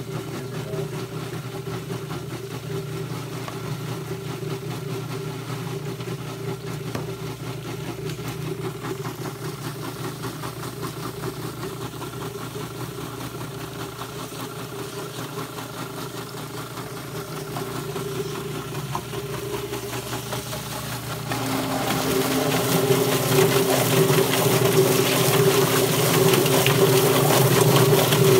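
A motor running steadily with a constant hum. About 21 seconds in it grows louder and a second, lower tone joins, as if the machine is under more load or a second machine has started.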